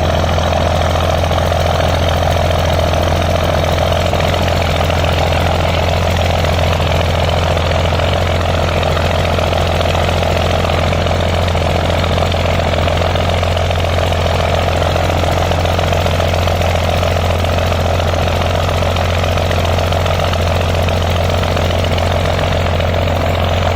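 An engine running steadily at a constant speed, a low drone that does not change.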